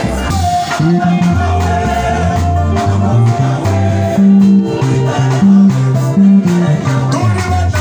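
Live band music: an electric guitar plays over a stepping bass line and percussion, with voices singing.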